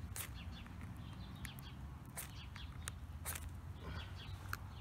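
Steel striker scraped down a ferro rod in several short, sharp strokes, striking sparks onto a trioxane fuel bar to light it.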